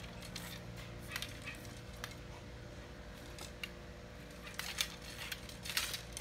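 Scattered light clicks and taps of fishing rods being handled and knocked together, with a run of quicker clicks near the end, over a faint steady hum.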